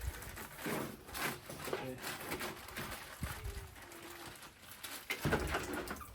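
A chicken giving a short, low, even call about halfway through, among irregular knocks and handling noises.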